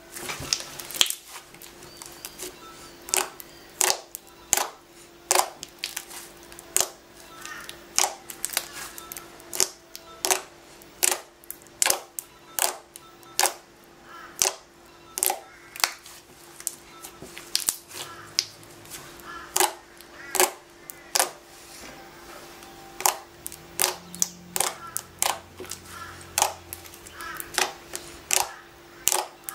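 Slime being squeezed, poked and folded by hand, giving sharp irregular clicks and pops as trapped air escapes, about one or two a second, over a faint steady hum.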